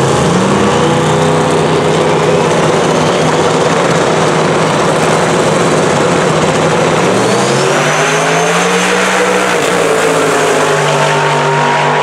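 Two drag cars' engines, one a twin-turbo big-block Chevy V8 in a Mazda RX7, running hard at the starting line, then launching and pulling down the strip partway through.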